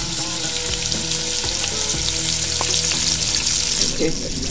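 Ribs and vegetables sizzling in a pot of stew, a steady frying hiss with fine crackles that fades near the end.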